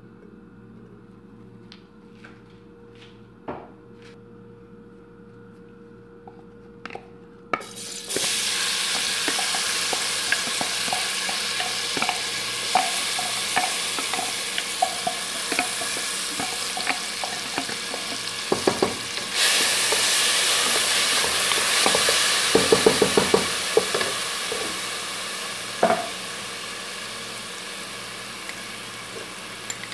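Chopped onions sizzling in hot oil in a non-stick pot, the sizzle starting suddenly about a quarter of the way in after a quiet stretch with a few small clicks. A wooden spatula stirs and scrapes against the pot now and then, and the sizzle eases near the end.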